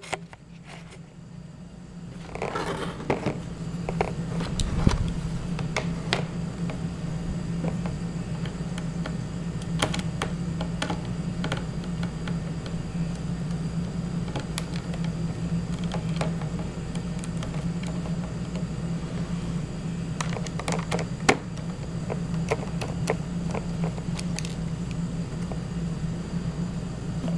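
Small clicks and taps of a screwdriver and fingers working the little screws and plastic parts of a laptop's screen mount, over a steady low hum that comes up about two seconds in.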